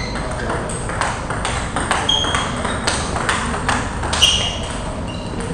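Table tennis balls being hit and bouncing on tables in a hall, a stream of irregular sharp clicks from rallies at several tables at once, with a few short high squeaks mixed in.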